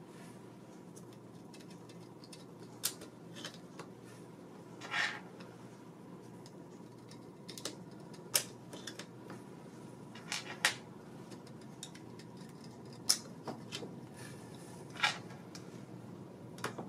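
.22 Short cartridges being pressed one by one into a JC Higgins Model 46 rifle's detachable box magazine with a small screwdriver bit: scattered small metallic clicks every one to three seconds as rounds are pushed past the feed lips, over a faint steady hum.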